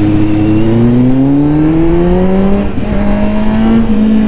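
Kawasaki Z900 inline-four motorcycle engine accelerating, its pitch rising for about two seconds, then dropping at a gear change and holding steady.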